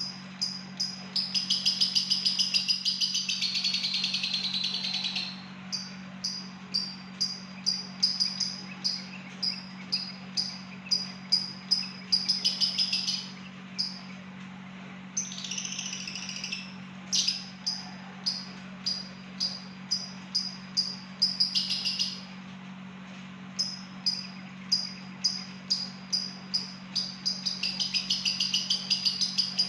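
Lovebird giving short, clipped high chirps at about two a second (the 'ngetik' call), broken several times by runs of continuous high chatter (light 'ngekek'), the longest about four seconds near the start. A steady low hum sits underneath throughout.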